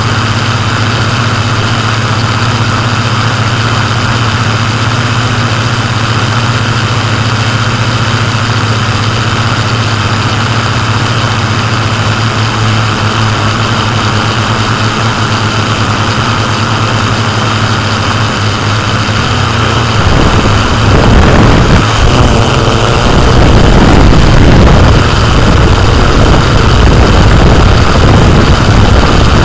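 Yuneec Typhoon Q500+ quadcopter's electric motors and propellers running steadily in flight, a constant multi-toned hum and whine. About two-thirds of the way through, a louder low rumble joins in.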